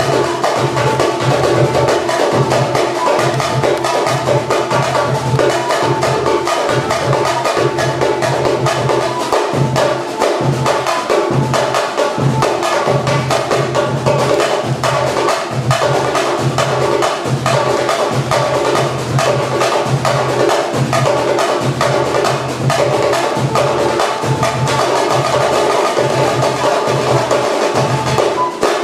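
Live samba percussion band (batucada) drumming a dense, steady rhythm.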